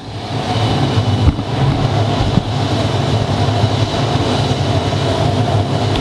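Waste-oil burner firing on the furnace at reduced throttle: a steady low roar of flame and air, with a thin steady whine over it. It swells over the first second and then holds.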